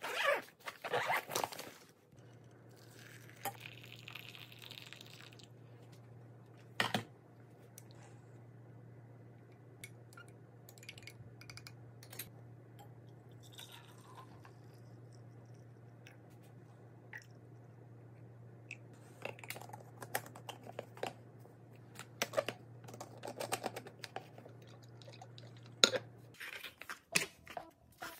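A fabric lunch bag being zipped shut, then scattered clicks and taps of kitchen things on a countertop, and liquid poured into a stainless steel thermos about halfway through. Under it a steady low hum begins a couple of seconds in and cuts off near the end.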